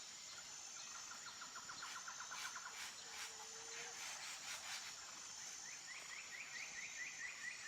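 Faint outdoor ambience of small birds calling: a rapid ticking trill about a second in and another starting near the end, over a steady high-pitched hum.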